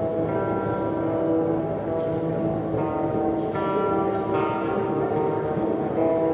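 Background music: several sustained notes ringing and overlapping, with new notes coming in a few times.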